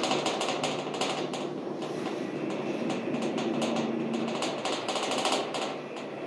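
Rapid, irregular clattering rattle, many clicks a second, over a steady low hum.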